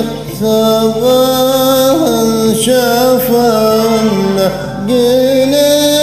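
A man singing a Turkish song over a karaoke backing track, in held notes that slide in pitch.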